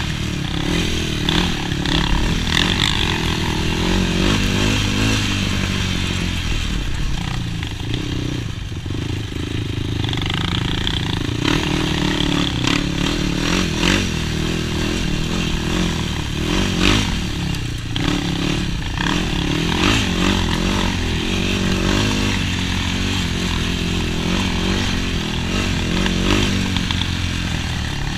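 Yamaha YFZ450 quad's single-cylinder four-stroke engine running under load on a trail ride, the revs rising and falling with the throttle throughout.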